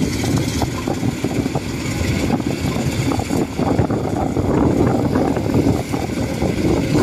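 Thai-built 105 rice combine harvester running as it cuts and threshes rice, its engine and threshing machinery making a steady, low mechanical noise.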